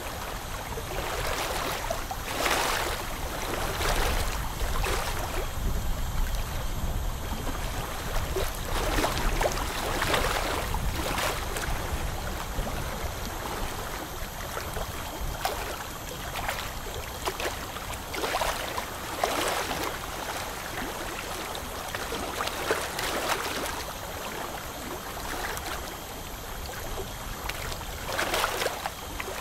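Steady watery hiss of a dental scaler's water spray and suction during tartar scaling, swelling into louder gurgling surges every second or two.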